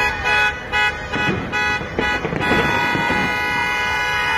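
Car horns honking in jammed traffic: several short toots, then one long held blast from about two and a half seconds in. A firework bang comes through about two seconds in.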